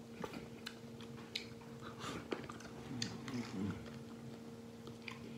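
A man chewing and gnawing meat off braised duck wings: soft wet smacks and small scattered clicks. There is a brief low murmur a little after halfway, and a steady faint low hum underneath.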